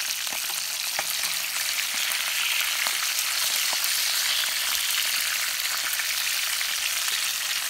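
Whole yellowtail snapper frying in hot oil in a pan: a steady sizzle with many small crackling pops.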